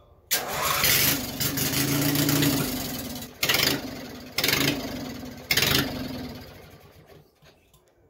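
Racing mower's small engine firing up suddenly and running on fuel poured by hand into the carburetor, since its fuel pump doesn't work. It slowly dies down, then surges back three times as more fuel goes in, each burst fading, and it dies out near the end.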